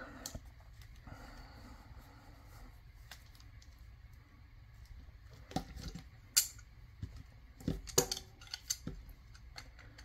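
Faint rubbing of a plastic cable gland nut being screwed tight by hand, then a few sharp clicks and knocks as steel tongue-and-groove pliers are picked up and clamped onto the connector.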